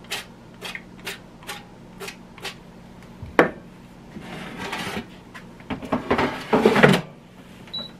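Oil sprayer spritzing oil onto breaded chicken legs in an air fryer basket, about two short sprays a second. A knock about three seconds in as the sprayer is set down, then scraping and clattering as the basket drawer is slid into the Paula Deen 10 qt air fryer. A short high beep near the end.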